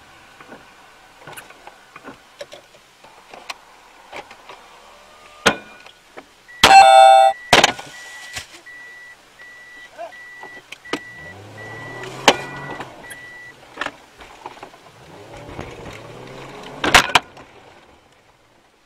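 A loud smashing blow on the car's windscreen about a third of the way in, with ringing as the glass cracks, followed by a run of short evenly spaced beeps at one pitch for several seconds. Further sharp knocks follow, the last loud one near the end.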